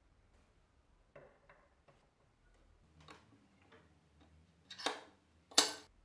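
Faint metallic clicks as a wire pick and tension wrench work in the keyway of a brass euro-profile lock cylinder. Two louder clacks come near the end, the second the loudest.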